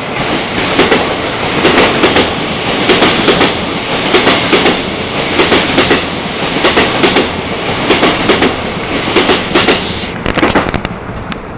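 E261 series 'Saphir Odoriko' electric express train passing a station platform at speed: a loud rush of air and running gear, with wheels clacking over rail joints in clusters about once a second as each car's bogies go by. The noise drops away suddenly near the end as the last car passes.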